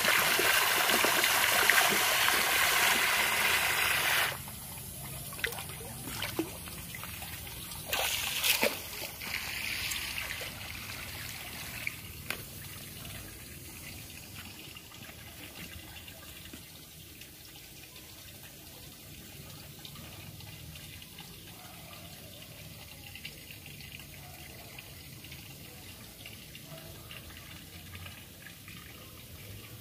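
Water running and rushing in a swimming pool, a steady loud rush that cuts off suddenly about four seconds in. A few knocks follow, then a much quieter steady trickle.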